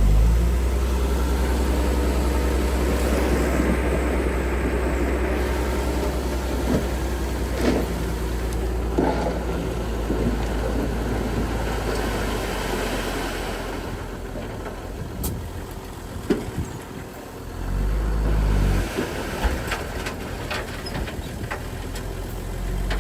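Diesel engine of heavy earthmoving machinery working. A deep rumble eases off after about twelve seconds, surges briefly again about three-quarters of the way through, and is joined by scattered clanks and knocks.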